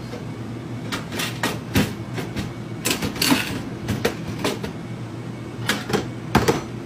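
Crowbar striking and prying at a cash register: a run of irregular metallic clanks and knocks, about a dozen, the hardest about three seconds in and near the end, over a steady low hum.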